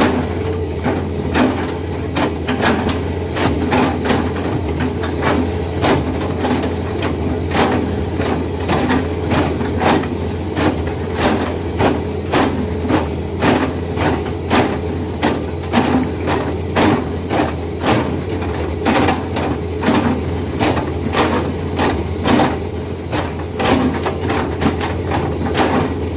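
Hydraulic excavator's diesel engine running steadily under load while its knife bucket chops into a felled oil palm trunk, slicing it into discs. Over the engine's hum comes a steady run of sharp knocks, about two a second.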